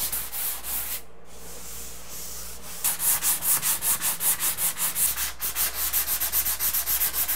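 Hand sanding with a 220-grit sanding sponge over dried Easy Sand 5 setting-compound patches on drywall, in quick back-and-forth strokes about five a second. The strokes pause about a second in and pick up again near three seconds.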